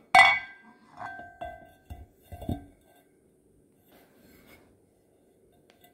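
An outboard propeller clinking and knocking against the splined prop shaft as it is slid on, each knock ringing briefly: a sharp clink at the start and three or four lighter knocks over the next two and a half seconds, then only faint handling.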